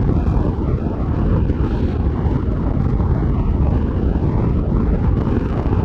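A machine running steadily with a low rumble.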